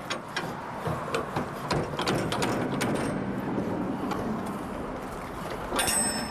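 Metal rattling and clicking of a shipping container's rear-door locking bars and latch handles being worked by hand, with a sharper ringing metal clank about six seconds in.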